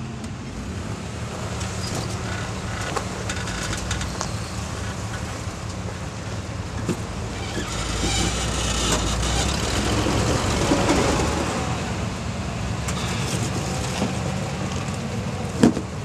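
Off-road rock crawler's engine running under load as it climbs a rock ledge, growing louder about halfway through. A couple of sharp knocks near the end.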